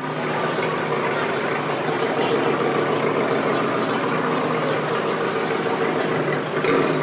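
Steady, fast mechanical chattering from the motorbike-and-sidecar roller coaster vehicles in the loading station, with a brief louder swell near the end.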